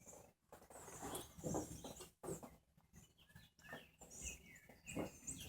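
Faint birds chirping: short, high, sweeping calls scattered every second or so, with a few soft low thuds underneath.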